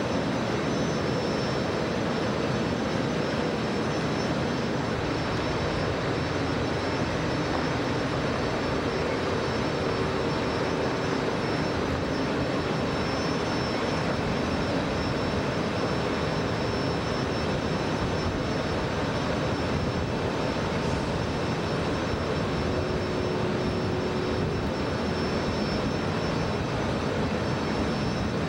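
Steady, unchanging engine drone with a rushing noise behind it.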